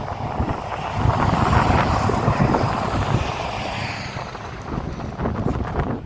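A passing vehicle or aircraft swelling and fading over a few seconds, under wind buffeting the microphone.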